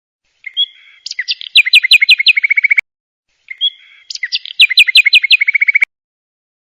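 A bird chirping: a short call, then a run of quick falling chirps ending in a fast trill. The identical phrase is played twice, with clean silence between.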